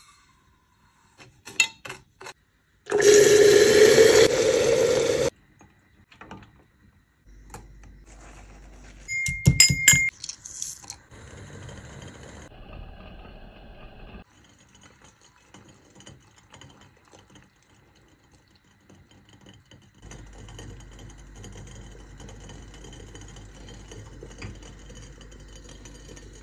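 A series of kitchen sounds at a gas hob with a glass teapot: light taps as sugar is poured in, a loud rushing pour-like noise a few seconds in, sharp glassy clinks around ten seconds, then a quieter steady hiss of the tea simmering on the gas flame.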